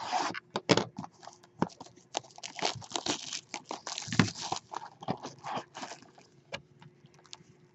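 Crinkling, rustling and clicking of baseball card box packaging being torn open and handled, many short irregular sounds that thin out near the end.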